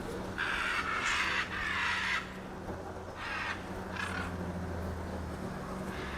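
Harsh, raspy bird calls: a loud run of squawks in the first two seconds, then two shorter calls about a second apart, over a steady low hum.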